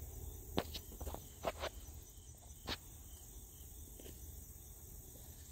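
Several sharp crackles and snaps in the first three seconds, over faint steady insect chirping.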